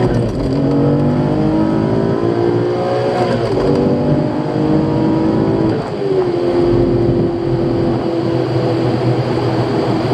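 Audi S4 B5's 2.7 twin-turbo V6, heard from inside the cabin, pulling hard through the gears during a test run of a fresh ECU tune. The engine note climbs, drops sharply at an upshift about three and a half seconds in, climbs again, drops at a second shift about six seconds in, then holds a steadier note.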